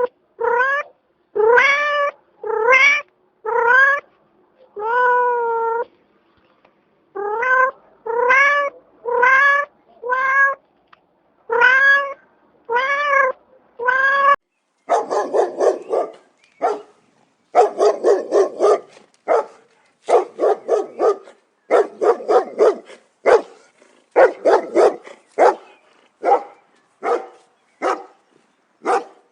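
A cat meowing over and over, about one meow a second, each call rising in pitch. About halfway through, the sound changes to quicker, harsher animal calls in clusters.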